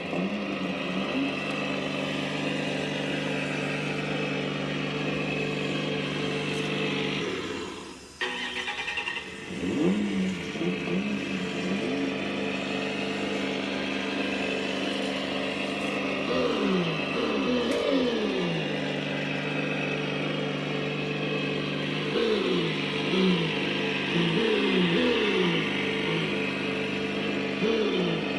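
Electronic engine sound simulator on a 1/10-scale RC Toyota 86, playing a synthesized car engine through its small speaker: a steady idle with repeated throttle blips rising and falling in pitch. About seven seconds in the sound dies away, then starts again abruptly a second later.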